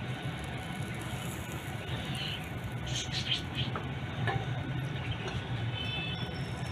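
Vegetables in a wire grilling basket over charcoal being brushed with oil: faint crackling with a few light ticks about three to four seconds in, over a steady low hum.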